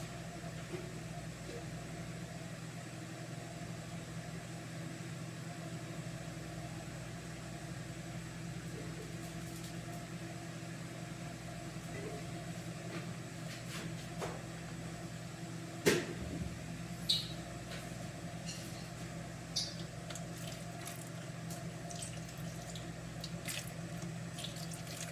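Kitchen sounds: a steady low hum with scattered clinks and knocks, the loudest knock about two-thirds of the way through.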